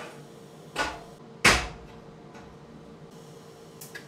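Two sharp metal knocks, the second louder and ringing briefly, as a stainless steel nozzle is handled on a steel welding table while setting up a TIG tack weld. A few faint ticks follow near the end over a steady low hum.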